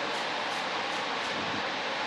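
A fan running steadily: a constant hiss with no change in level.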